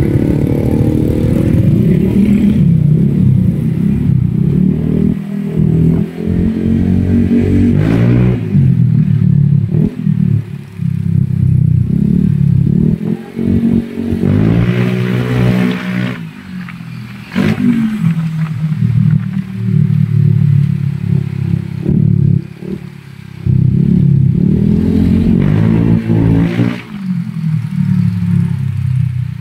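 Honda Click scooter's single-cylinder engine through an aftermarket Kenochi exhaust, run hard and revved up several times, the pitch climbing with each pull of the throttle and dropping briefly when it closes.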